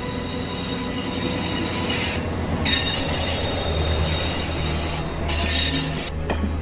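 Train rolling past at close range, its wheels running on the rails with a high-pitched steady squeal. A deep rumble swells in about halfway through.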